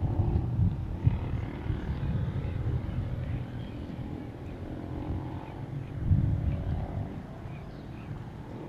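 Low engine rumble of vehicles crossing the bridge. It swells about half a second in and again about six seconds in as vehicles pass.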